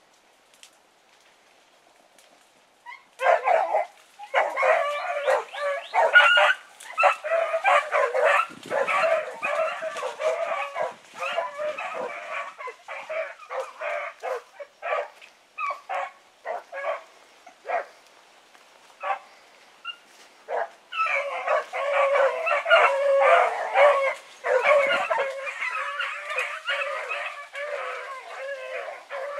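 Several rabbit dogs barking in full cry on a rabbit's trail. The barking starts about three seconds in, overlapping and continuous, thins out to scattered barks past the middle, then swells again.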